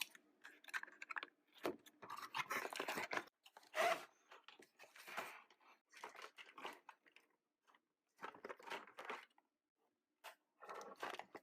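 Toy packaging being opened by hand: quiet, irregular crunching, tearing and crinkling.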